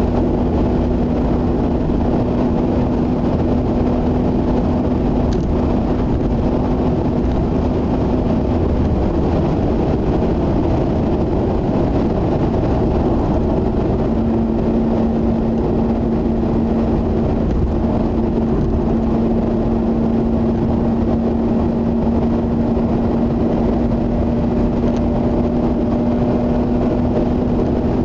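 Inside the cabin of a Mazda RX-8 cruising on the motorway: steady tyre and road rushing noise with the rotary engine's hum. The hum fades about nine seconds in and comes back about fourteen seconds in.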